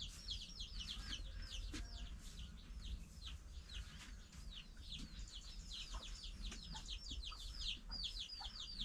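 Chicks peeping without pause: many high, downward-sliding peeps, several a second and overlapping, with a few fainter lower calls among them.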